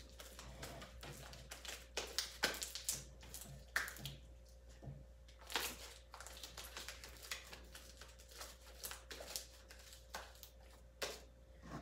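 Slime being kneaded and stretched by hand: irregular sticky clicks and squelches, over a faint steady hum.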